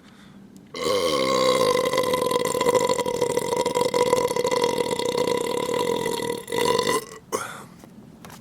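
A man's long, loud belch. It starts about a second in and holds one steady pitch for about six seconds.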